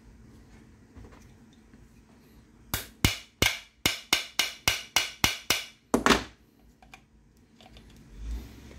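Hammer tapping on the armature bearing of a circular saw: about a dozen sharp, ringing taps, roughly three a second, in a run lasting some three and a half seconds.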